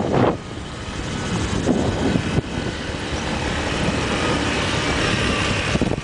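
Motorcycle on the move: steady engine and wind noise, growing a little louder near the end.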